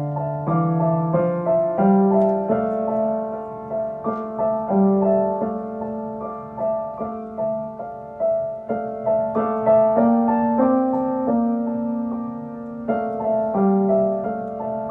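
Solo piano playing a slow, gentle melody with sustained chords.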